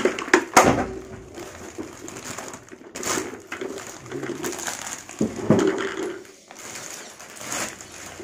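Clear plastic wrapping crinkling and rustling as plastic tricycle parts are handled inside it, with loud crackles right at the start and again around three, five and seven and a half seconds in.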